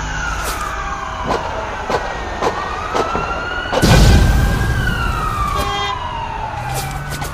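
A siren wailing, its pitch sliding slowly down and up in a cycle of about four to five seconds. Sharp clicks punctuate it, with a loud thump about four seconds in.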